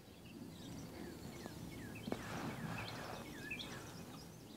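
Outdoor rural ambience: birds chirping in short, scattered calls over a low, steady background hush, with a single sharp click about two seconds in.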